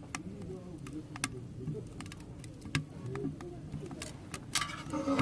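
Firewood burning in a wood stove, with scattered sharp snaps and pops and a louder cluster of crackles near the end, over a faint low murmur.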